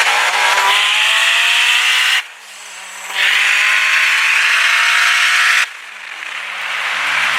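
Performance car engine accelerating hard at full throttle with a loud rushing hiss, its pitch slowly climbing. The loudness drops away suddenly twice, about two seconds in and again at about five and a half seconds, then builds back as the engine note falls near the end.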